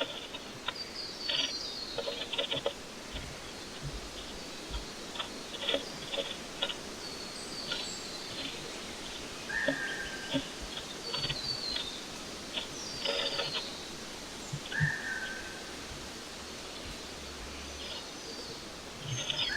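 Small birds chirping in short high notes, with a couple of longer whistled notes, over frequent sharp clicks and scratches from inside a nest box as the birds move about and work straw and feathers into their nest.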